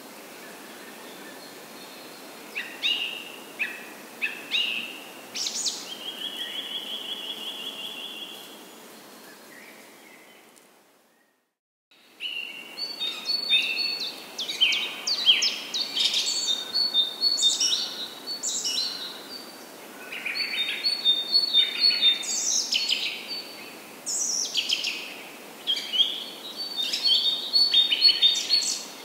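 Several songbirds chirping and calling repeatedly, one giving a steady trill for a couple of seconds, over the steady rush of a flooded, fast-flowing creek. The sound cuts out for about a second partway through.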